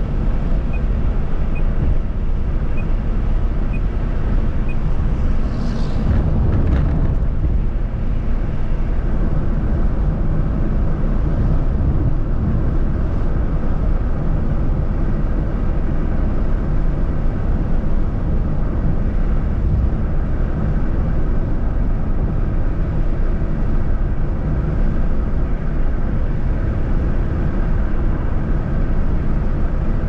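Car driving on a highway: steady road and wind noise heavy in the low end, with a brief whoosh about six seconds in.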